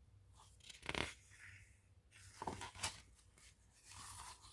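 Faint paper rustling and brushing, a few short scrapes, as a picture book's pages are handled and turned.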